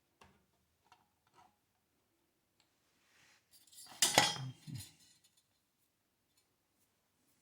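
Metal parts of a gas water heater's burner assembly being handled: a few faint clicks, then a short metallic clatter about four seconds in.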